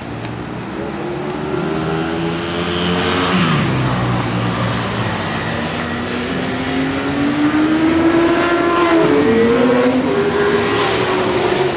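Sports motorcycle engines running hard on the race circuit. One engine drops in pitch about three and a half seconds in, then another climbs steadily in pitch under acceleration with a brief dip near nine seconds, like a gear change.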